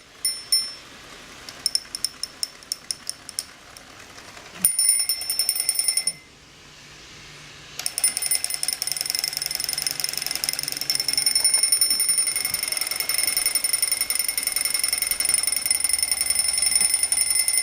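Alarm clock ringing: a few short bursts at first, a ring of about a second and a half near five seconds in, then after a brief pause it rings continuously from about eight seconds on.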